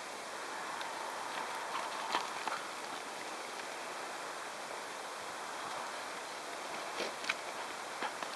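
A Labrador and a Doberman running and scuffling over dry, straw-covered ground: paw footfalls and scuffs over a steady hiss, with a few short sharp knocks, most of them near the end.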